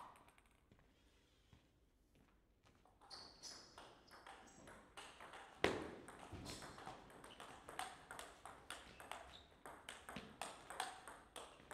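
Table tennis ball clicking off rubber rackets and bouncing on the table in a quick rally, after a few near-quiet seconds between points. There is one louder thump about halfway through.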